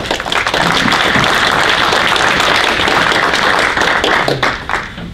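Audience applauding: many hands clapping together, starting at once and dying away near the end.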